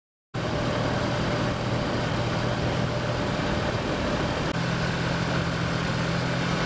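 Kawasaki Versys motorcycle engine running steadily while riding, with wind noise over it. The sound cuts in abruptly just after the start, and the engine note shifts slightly about halfway through.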